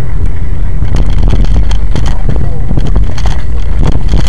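Loud, steady rumble of a car driving on a snowy road, heard from inside the cabin through a dashboard camera's microphone. A rapid run of clicks and knocks starts about a second in.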